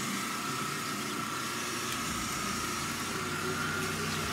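Car engine running at low revs while the car reverses slowly into a garage.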